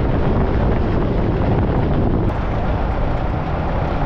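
Wind buffeting the microphone: a loud, steady rumble and hiss with no clear engine note.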